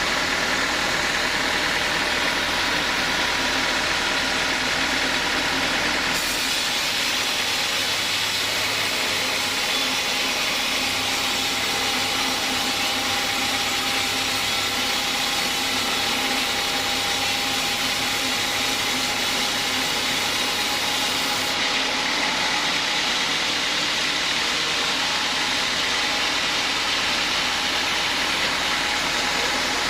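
Stihl chainsaw in a homemade chainsaw-mill rig, its engine running steadily. The sound turns abruptly brighter and hissier about six seconds in and switches back about two-thirds of the way through.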